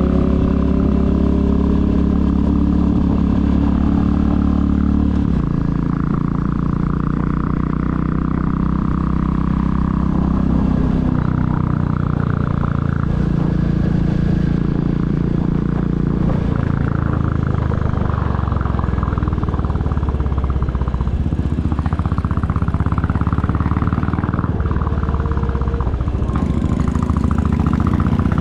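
2022 Royal Enfield Classic 350's single-cylinder engine running under way as the bike is ridden, its note dropping about five seconds in and shifting several more times with throttle and gear changes.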